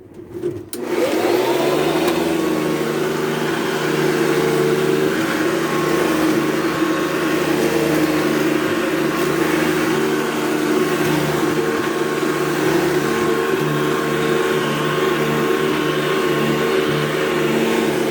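Vintage Hoover two-speed Convertible upright vacuum cleaner switched on: the motor spins up over about a second, then runs with a steady hum and whine.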